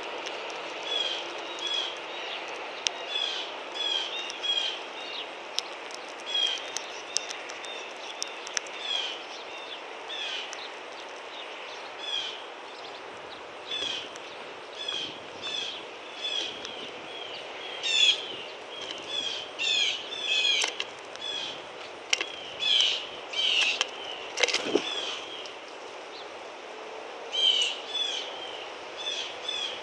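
Wild birds chirping: short, sharp notes repeated in irregular bouts, several a second, over a steady outdoor hiss. One knock about 25 seconds in.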